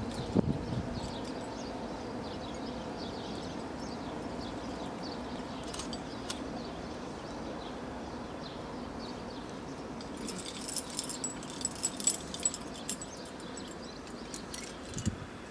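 Aluminium carabiners of the quickdraws racked on a climber's harness clinking and jingling as he moves: a few light clicks about six seconds in and a busier run of jingling a few seconds later, over a steady low background hiss.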